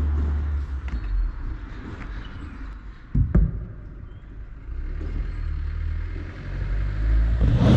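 Wind buffeting an outdoor camera microphone, a steady low rumble, with one sharp knock about three seconds in.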